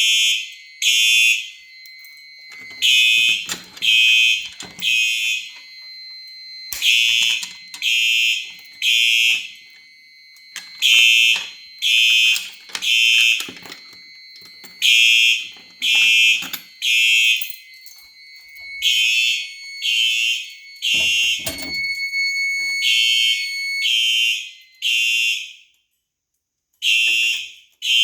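Simplex 4903-9252 electronic fire alarm horn sounding in the temporal code-3 pattern: three short, loud blasts about a second apart, then a pause, repeating, with a fainter steady tone underneath. It stops briefly near the end, then starts up again.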